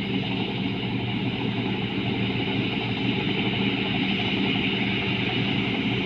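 Rice combine harvester running steadily: a constant engine drone with an even hiss over it.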